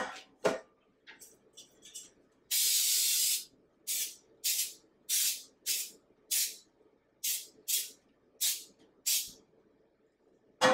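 Aerosol can of Pam baking spray hissing onto metal cake pans: one long spray about two and a half seconds in, then about nine short puffs, roughly two a second. Two sharp knocks at the very start.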